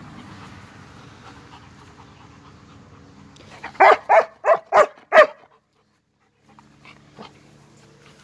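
German shepherd barking five times in quick succession about four seconds in, during rough tug-of-war play.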